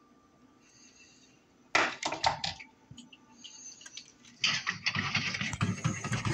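A blender jar and a stainless mesh strainer knocking and scraping together in a sink as guava puree is emptied into the strainer: a short burst of knocks about two seconds in, then a longer stretch of clattering from about four and a half seconds.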